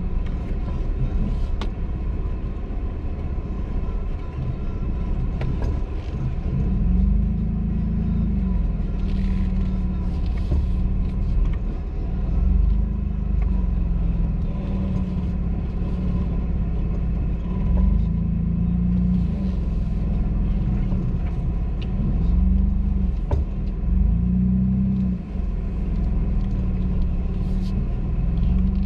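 Off-road vehicle's engine running under a low rumble, its pitch rising and falling over and over as the throttle is opened and eased, from a few seconds in.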